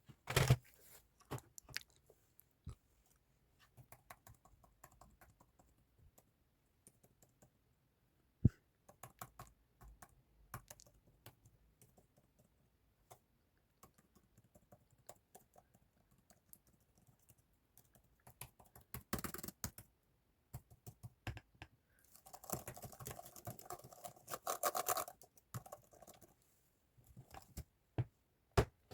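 Typing on a computer keyboard: separate key clicks in irregular runs, with one sharper click a third of the way in and a denser, louder run of clicking near the end.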